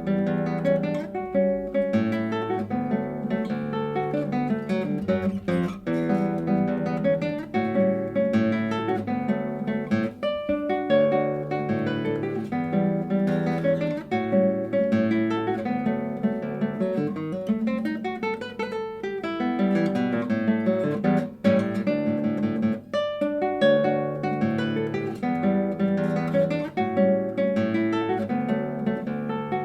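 Solo classical guitar playing a lively fingerpicked piece, with a melody over a steady run of bass notes.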